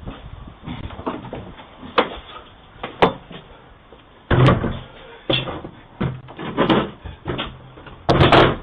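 Irregular knocks and bangs on a Ring doorbell camera as a man tampers with it to sabotage it, heard through the camera's own muffled microphone. Two sharp single knocks come first, then a louder run of bangs from about halfway on.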